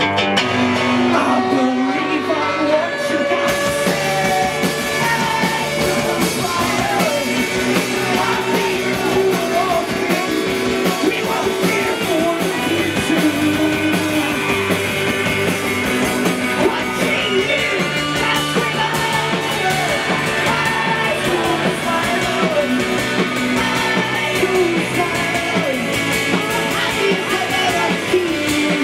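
A live band playing a rock song: a male singer over a strummed long-necked acoustic string instrument of the mandolin family, with saxophone and bass guitar. The band gets louder and brighter about three and a half seconds in.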